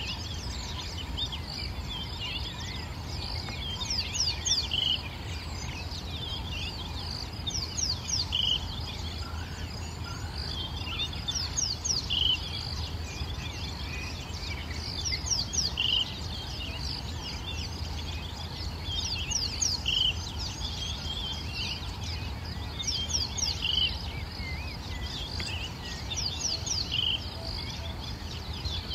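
Birdsong: a bird repeats a short phrase of quick sweeping high notes about every four seconds, with lighter chirping between, over a steady low rumble.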